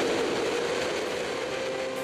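Motorcycle riding at speed: wind rush on the bike-mounted camera's microphone with a steady engine drone, slowly getting quieter.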